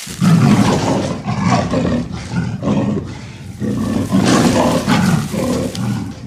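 A big cat roaring and snarling in two long, rough bouts, the second starting about four seconds in.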